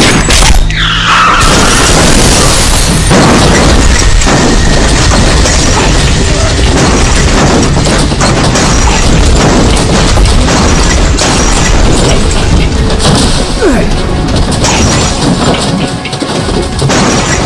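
Loud action-film soundtrack: a dramatic background score mixed with booms and crashing effects for a vehicle overturning in the dust.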